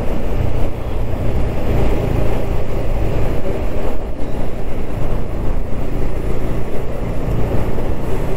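Bajaj Pulsar NS200's single-cylinder engine running under way in traffic, mixed with steady road and wind noise.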